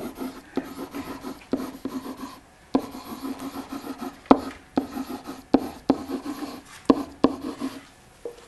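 Handwriting: a pen scratching across a writing surface in short strokes, with repeated sharp taps as it touches down.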